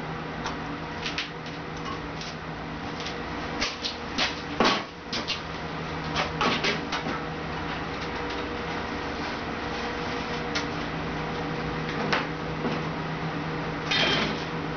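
Sheet steel being handled on a manual sheet metal brake: scattered clanks and taps of the metal against the machine, loudest about four to five seconds in. Near the end comes a short scrape as a thin steel sheet slides across the brake's bed, all over a steady hum.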